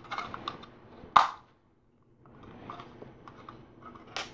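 Plastic LEGO pieces clicking and rattling as they are handled and pressed together, with a sharp snap about a second in and another near the end. The sound cuts out completely for a moment after the first snap.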